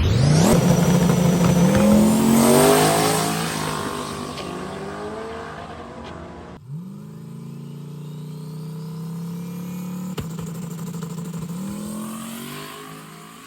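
Turbocharged LS V8 drag car accelerating hard, its pitch climbing and then fading as it pulls away. The sound cuts off suddenly about six and a half seconds in to a second run that rises and fades the same way.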